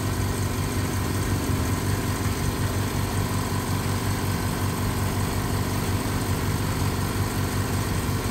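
Small air compressor running steadily, a continuous low motor hum.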